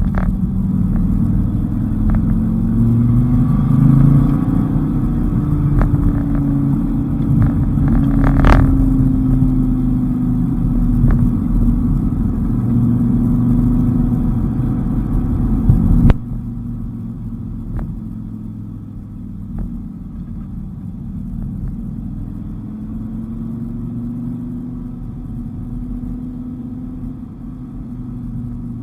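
Dodge Viper's V10 engine pulling through mountain bends, its note rising and falling as the car accelerates and lifts off. About sixteen seconds in the sound drops abruptly to a quieter, steadier engine note.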